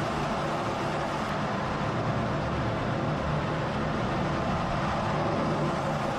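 Steady engine and airflow noise heard inside a fighter jet's cockpit in flight, an even rushing sound with a low hum beneath it.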